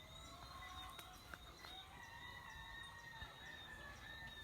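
Faint rooster crowing, one long drawn-out call starting about halfway through, over a steady high thin tone.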